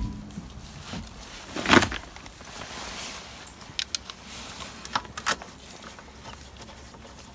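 Small metal clinks and jingles of steel wheel bolts and a socket handled and started into a car's wheel hub by hand, with a scuff about two seconds in and a sharp metallic clink about five seconds in.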